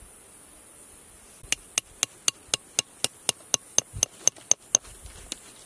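A small hammer tapping a metal chisel into soft rock to free a fossil: about fourteen quick, even taps, about four a second, each with a short metallic ring, starting about a second and a half in.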